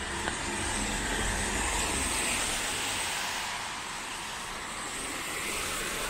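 A car driving past on a wet road, its tyres hissing on the wet asphalt, the hiss swelling and then easing off, over the steady hiss of light rain.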